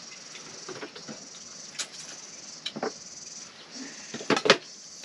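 Spoons and hands working at steel plates during a meal of kheer, a few scattered sharp clinks, the loudest pair about four and a half seconds in, over a steady high hiss.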